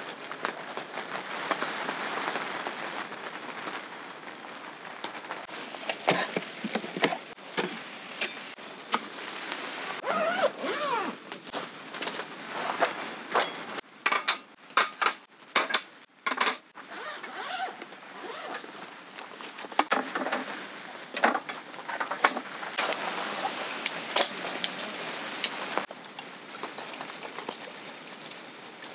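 Rain pattering steadily on the tent, with a string of sharp clicks and knocks as a folding camping table with steel rails and wooden end bars is set up.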